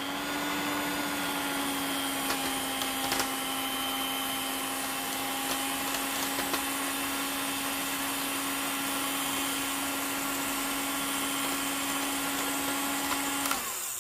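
Electric hand mixer running at a steady whine, its beaters whipping body lotion that is turning thick. It comes up to speed at the start and is switched off near the end, with a few light ticks along the way.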